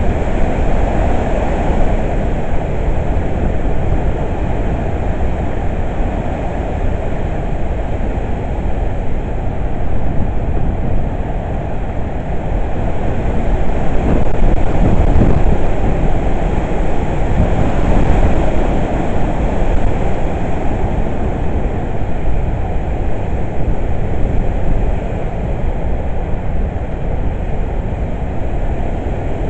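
Hurricane wind blowing in gusts, with heavy low rumble from wind on the microphone; the wind swells to its strongest about halfway through, then eases.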